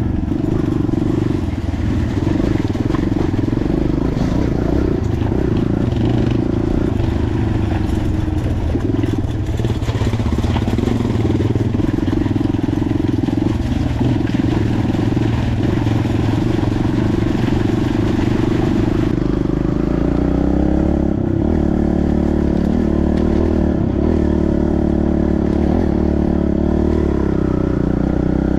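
Dirt bike engine running while being ridden. About two-thirds of the way in, the higher noise falls away and the engine note rises and falls with the throttle.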